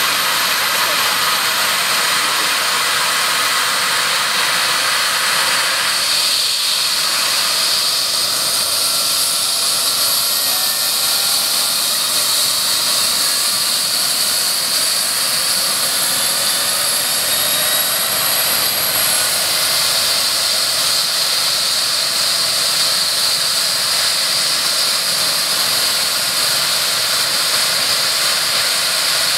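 Eurocopter EC135 helicopter's twin turbine engines running on the ground: a steady, loud, high-pitched turbine whine and hiss. A few faint tones within it slowly shift in pitch.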